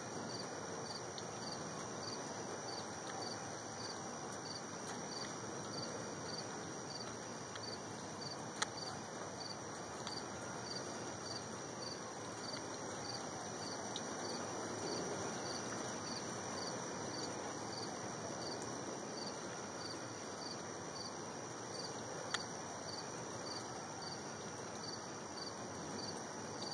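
Crickets chirping steadily at night, about two high chirps a second, over a constant outdoor background hiss. Two sharp clicks stand out, one about a third of the way in and one near the end.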